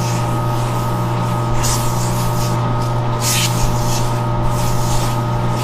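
Metal lathe running with a steady hum while 320-grit sandpaper is held against the spinning crankshaft of a Speedaire 5Z404 air compressor, rasping in several hissing bursts as the shaft is polished.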